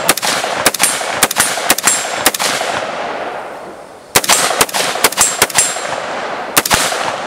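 AR-15-style carbine fired in quick semi-automatic strings, several shots a second, each with a ringing echo. A pause of about a second and a half comes midway, then another quick string and a last pair of shots near the end.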